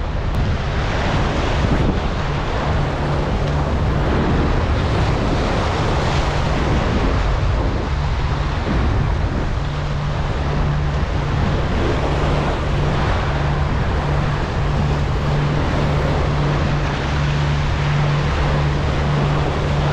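Wind buffeting the microphone over the wash of sea waves, with a steady low hum underneath.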